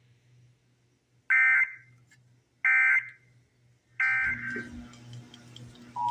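Three short bursts of Emergency Alert System end-of-message data tones, the warbling digital SAME code, about a second and a half apart over a faint low hum. The bursts mark the end of the test message. Right at the end a steady two-tone EAS attention signal starts.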